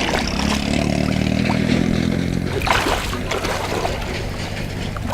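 A small motor running steadily with a low hum, fuller for the first two or three seconds, and a few brief knocks about three seconds in.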